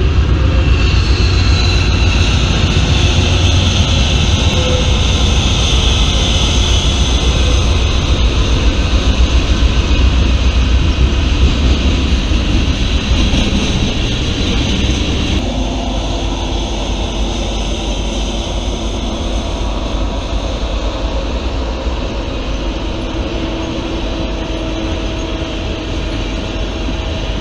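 Freight trains passing: diesel locomotives and tank cars rolling by, a loud, steady noise. About halfway through the sound changes abruptly from one train to another.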